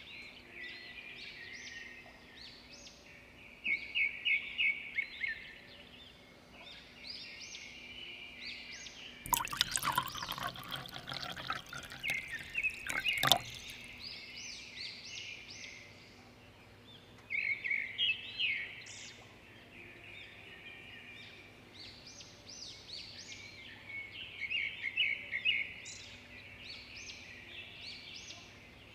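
Small birds chirping with quick repeated trills. About nine seconds in, a rattling burst lasts roughly four seconds and ends in a sharp click.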